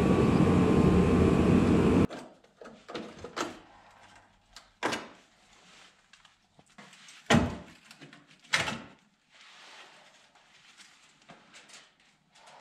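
A loud steady noise that cuts off abruptly about two seconds in, followed by scattered metallic clunks and knocks as a sheet-metal repair panel is handled and offered up to the wheel arch. The two loudest knocks come near the middle, about a second apart.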